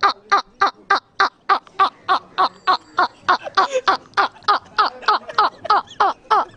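A man laughing in a long run of short, even, staccato 'ha' pulses, about three to four a second, each dipping slightly in pitch, with a gobbling, bird-like quality.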